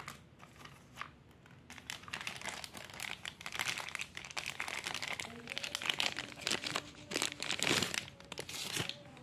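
Clear plastic sleeve crinkling as the digital caliper wrapped in it is lifted and handled. It is a dense run of crackles that starts about two seconds in.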